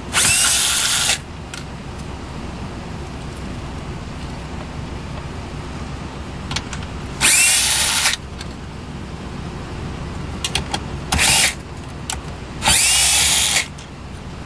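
Cordless power driver spinning out screws in four short bursts, three of about a second and one shorter, with small clicks between: backing out the four screws that hold the dash screen in place.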